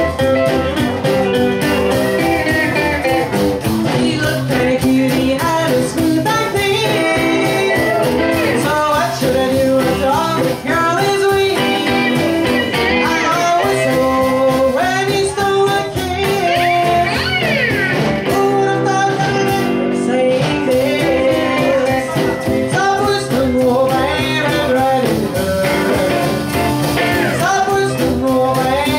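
Live band playing: electric guitar, upright bass and drums, with a woman singing.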